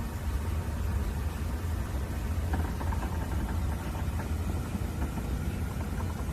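MRI scanner running a scan sequence: a steady low drone, joined about halfway through by a fast run of higher-pitched rhythmic tapping from the gradient coils.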